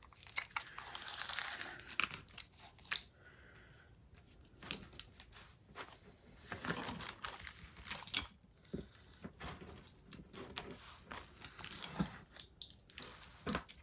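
A diamond painting canvas and its plastic film being handled and spread out to be measured: irregular crinkling and rustling with scattered light knocks.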